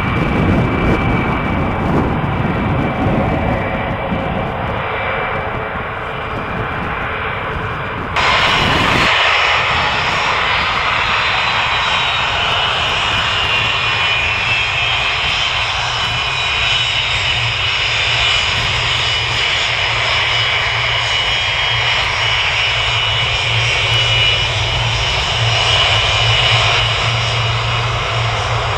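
Rolls-Royce RB211-524D turbofans of a Boeing 747-200 freighter running at low thrust as the jet taxis. About eight seconds in the sound changes abruptly to a steady high fan whine over a low hum.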